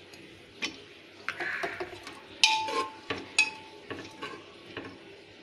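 A metal spoon stirring spiced green peas and water in a pressure cooker, clinking several times against the pot's side. The loudest clink, about two and a half seconds in, leaves a brief ringing tone.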